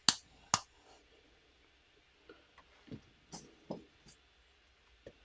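LEGO plastic pieces clicking as clip parts are snapped onto the front of a brick-built model car: two sharp clicks near the start, then a string of fainter ticks and taps from the pieces being handled.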